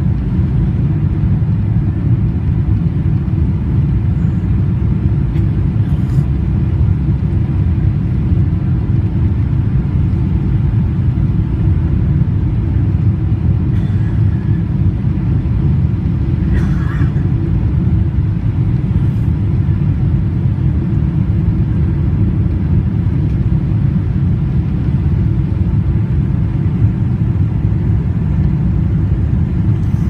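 Airliner cabin noise in flight: the jet engines and rushing air make a steady, loud low rumble.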